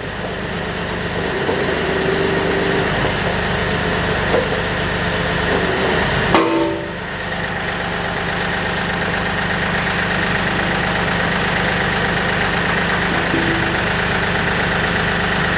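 Kioti DK-series tractor's diesel engine running steadily while its hydraulics extend the KB2485 backhoe boom, with a high hydraulic whine that grows stronger in the second half. A sharp clunk comes about six seconds in.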